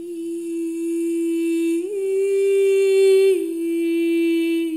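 A single held musical note, steady in pitch, with a bright row of overtones. It starts suddenly, steps up a little about two seconds in, and drops back to the first pitch about a second and a half later.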